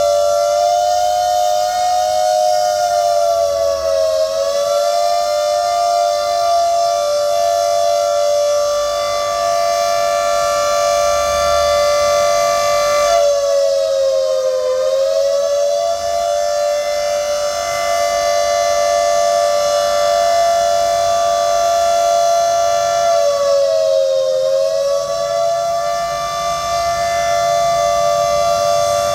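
Civil-defence emergency siren sounding a civil-defence alert: one long, loud, steady tone with many overtones. Its pitch sags briefly and recovers three times, about ten seconds apart.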